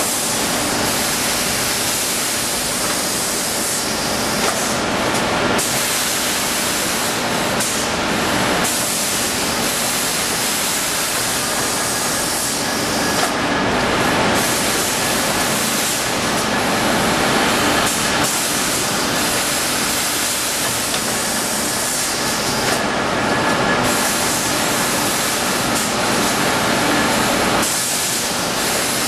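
A small-bag aseptic filler runs with a steady hissing machine noise and a faint low hum. The highest part of the hiss briefly drops out a few times.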